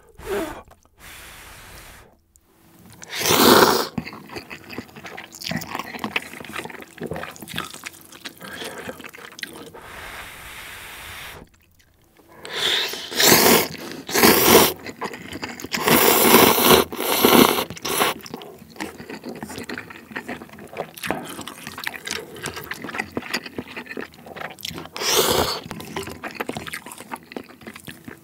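Close-miked slurping of instant ramen noodles from a bowl of broth, in a few loud slurps, the longest run of them in the middle, with chewing in between.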